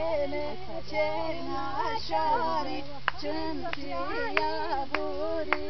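A group of women's and girls' voices singing a folk song together, the melody rising and falling continuously. Several sharp clicks cut through in the second half.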